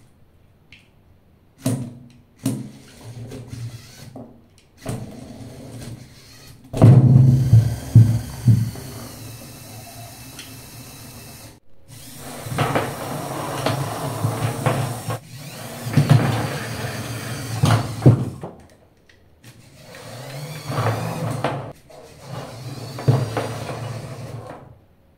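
Small electric motors of a LEGO Power Functions unit and a red knock-off copy whirring through their gears as they drive LEGO test cars, some runs under a 2 kg dumbbell load. The runs come in several short stretches that start and stop abruptly.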